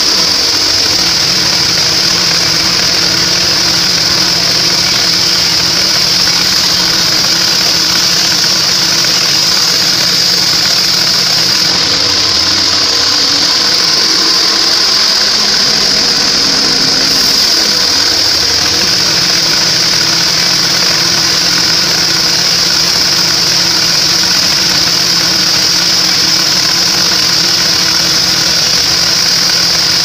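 Band sawmill running, its blade cutting lengthwise through a trembesi (rain tree) log: a loud, steady high-pitched whine over the machine's hum.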